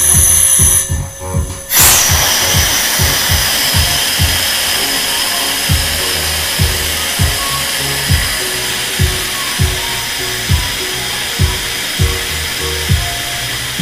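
Background music with a steady beat, over a steady hiss from a car-wash hydraulic lift letting the car down. The hiss starts about two seconds in and slowly fades.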